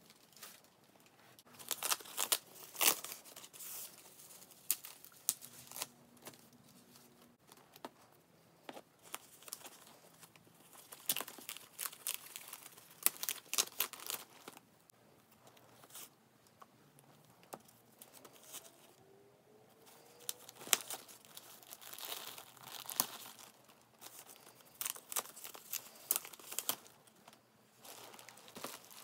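Crinkling and tearing of white protective wrap as it is pulled off a new tote bag's handles: irregular rustling with sharp crackles and short pauses.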